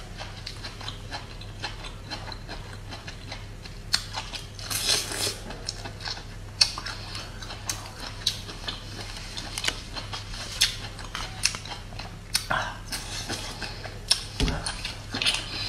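Close-up crunching and chewing of bamboo shoots, with sharp snaps and clicks throughout and the rustle of the husk being peeled off by hand. Louder crunching bursts come about four seconds in and again near the end.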